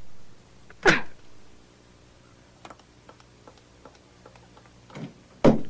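A telephone handset clunks down about a second in, followed by faint scattered clicks of footsteps and two louder knocks near the end.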